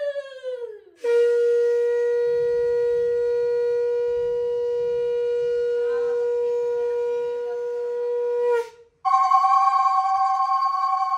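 Conch shell (shankha) being blown. A blast falls away in pitch in the first second, then one long steady note is held for about seven seconds. After a brief break, another strong blast starts about nine seconds in.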